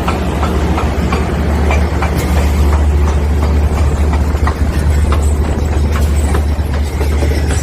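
A reverse-circulation rock drilling rig at work: a steady, loud low engine drone under a rough noise, with frequent irregular sharp clicks and knocks from the drilling.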